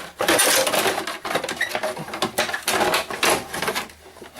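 Parts of an LCD monitor clattering, clicking and rattling as they are pulled apart by hand, busiest in the first second or so and quieter near the end.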